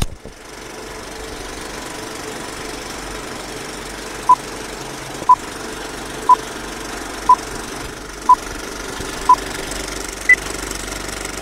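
Old-film countdown leader sound effect: a film projector's steady whirr and clatter, opening with a sharp click. Six short beeps come exactly a second apart from about four seconds in, then one higher-pitched beep a second later.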